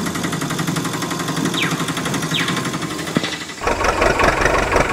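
Tractor engine sound effect for a toy tractor, idling with a fast steady rattle and two short falling whistles near the middle. About three and a half seconds in it turns louder and deeper.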